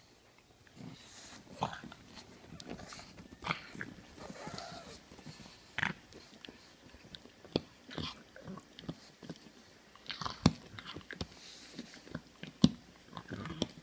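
A pug gnawing on a toy chew bone: irregular chewing with clicks of teeth on the bone, and two sharper clacks in the second half.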